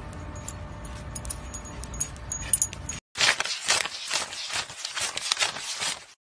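A steady low background hum with a few faint clicks. Then, about three seconds in, paper banknotes are counted by hand: a rapid, crinkly rustling of notes being flicked through.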